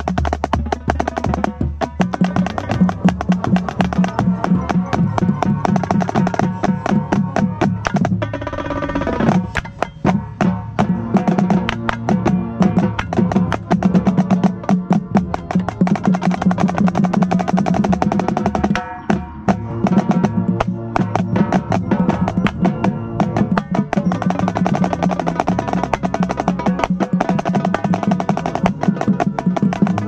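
Marching snare drum played close up with sticks, fast strokes and rolls, together with tenor drums and the rest of a drumline, over sustained low pitched notes.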